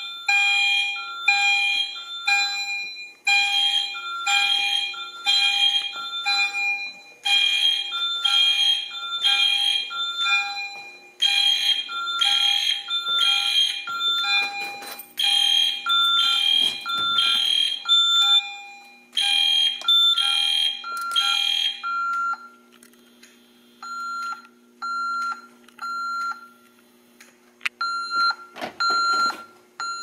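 EST Genesis fire alarm horn strobe, its horn muffled with electrical tape inside, sounding in the temporal-three pattern (three blasts, a pause, repeating), together with the repeating chime tones of an EST Genesis chime strobe. The horn and chime fall silent about 22 seconds in, leaving only occasional short beeps, with a few keypad beeps near the end.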